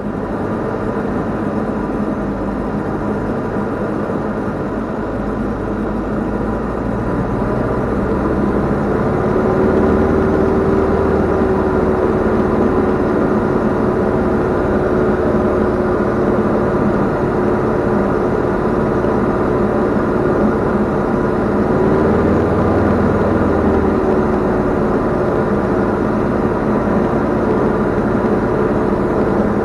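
Cabin sound of a Diamond DA40 light airplane on final approach: the single piston engine and propeller droning steadily with wind noise, the loudness rising slightly about a quarter of the way in and the tone wavering briefly about two-thirds of the way through.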